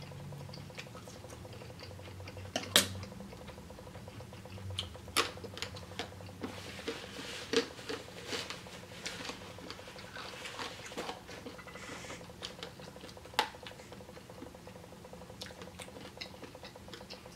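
Close-up mouth sounds of a person chewing steak: scattered soft wet smacks, with a few sharp clicks spread through.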